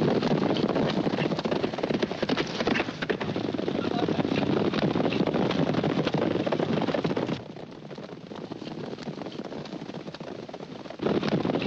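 A group of horses galloping hard over dry, stony ground, their hoofbeats drumming in a rapid, continuous clatter. About seven seconds in the sound drops to a quieter, more distant gallop, and it comes back loud near the end.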